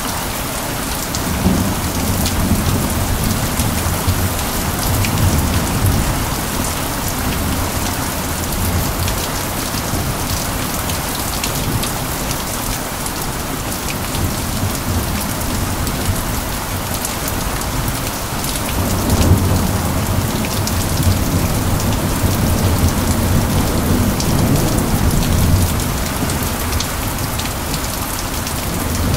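Steady rain falling on a surface, with many sharp drop hits, under low thunder rumbling that swells in the first few seconds and again through the second half.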